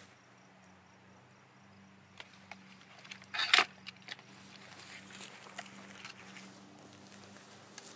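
Clicks and handling noise from a Hatsan air rifle being handled and readied, with a short, louder metallic rattle about three and a half seconds in.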